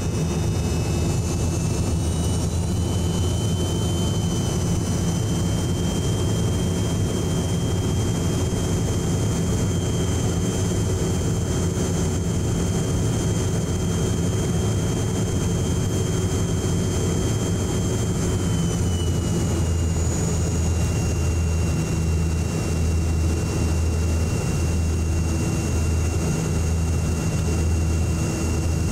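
Jet airliner cabin noise on final approach: a steady low rumble with the engines' high whine over it. The whine steps up slightly in pitch a couple of seconds in and slides back down about two-thirds of the way through as engine power changes.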